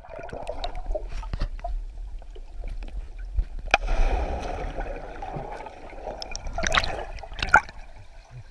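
Splashing and bubbling of a person plunging into a river, heard from underwater: a sharp knock about three and a half seconds in, then rushing bubbles, and a second louder burst of churning water near seven seconds.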